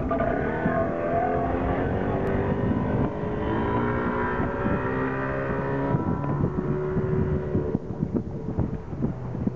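A 40 hp outboard motor on a 14 ft aluminium boat accelerating hard from rest and running at speed. Its note rises in the first second or two and then holds steady. The higher tones drop away after about six seconds, and wind buffets the microphone near the end.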